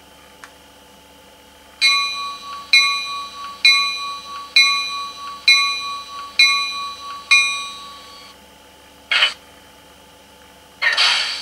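Model-train sound decoder (ESU 3.5) in an H0 TEE RAm diesel railcar playing a bell through its speaker, seven strikes about once a second. Two short hisses of released air follow, the second one longer.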